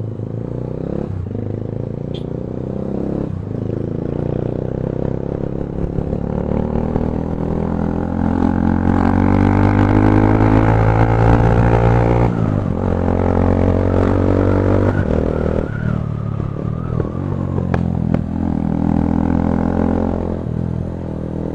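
Bajaj Pulsar 220's single-cylinder engine running through an aftermarket Akrapovic exhaust while riding. The note climbs steadily for several seconds, drops sharply about twelve seconds in, then runs fairly steady with small rises and falls.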